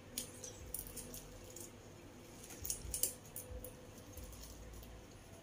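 Faint scattered crackles and clicks of chips being handled and crunched, over a faint steady hum.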